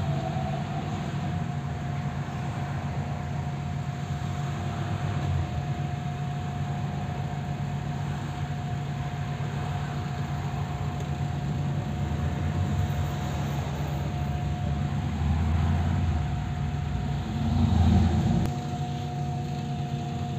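MAN NL283 Lion's City city bus under way, heard from inside the passenger cabin: engine and drivetrain running with a steady whine over a low hum. The sound grows louder briefly about three-quarters of the way through.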